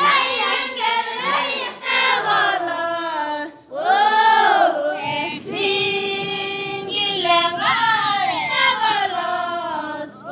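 Young Maasai girls singing together, with a note held steady for about two seconds midway.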